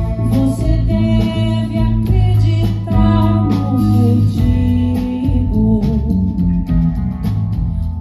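Live band music: a singer's voice over guitar and drums.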